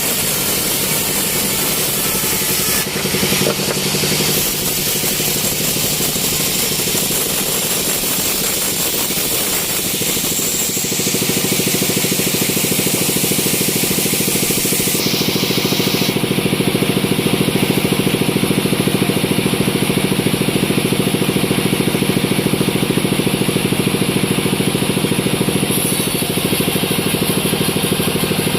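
Sawmill machinery running steadily, with a steady engine-like hum that grows louder about eleven seconds in.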